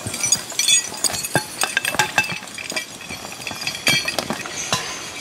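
Metal chains of a horse team's harness and log hitch clinking and jangling, a quick irregular run of sharp clinks with a bright ringing note.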